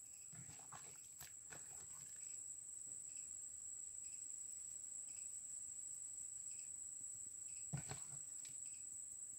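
A steady high-pitched insect drone, faint, with soft clicks and rustles from salting and hand-mixing fish in a plastic bowl; a louder knock near the end.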